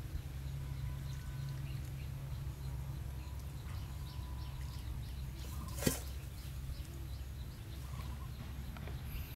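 Outdoor background: a steady low rumble with a single sharp click about six seconds in.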